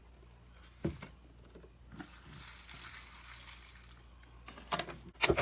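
Eating cereal and milk from a bowl: a sharp click about a second in, then a cluster of wet slurping and spoon clicks near the end.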